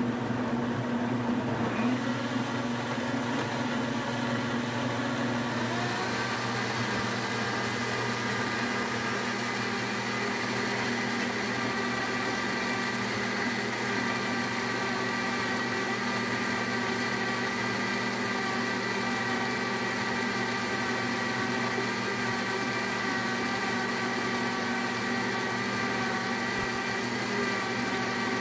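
Blendtec high-speed blender motor running steadily with a constant whine. Its tone shifts slightly about six seconds in.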